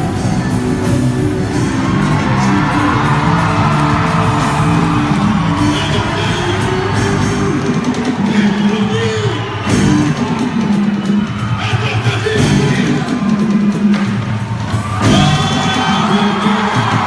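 Loud quadrilha junina dance music with a singing voice, with whoops and shouts over it.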